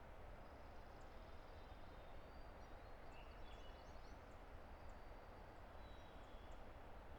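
Distant river rushing steadily, with faint scattered bird chirps and thin whistled notes high above it.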